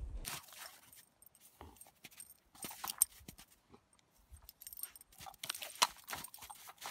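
Husky digging and nosing into crusty snow: irregular crunching, with sharper crunches about three seconds in and again near six seconds.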